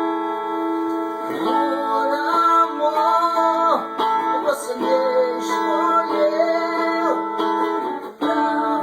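Music: a song's passage with guitar accompaniment under held chords and a wavering melody line, with no words sung.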